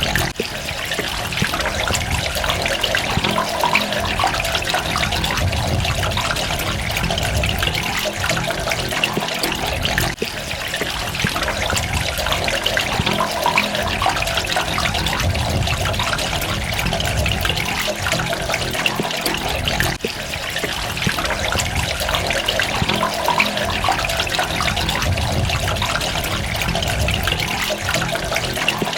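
Running water trickling and splashing steadily, with brief dips in level about every ten seconds.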